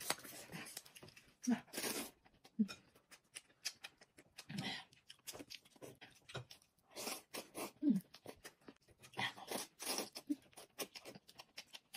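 Eating noodle soup with chopsticks: slurping and chewing, with many small clicks of chopsticks against ceramic bowls and a few short mouth sounds.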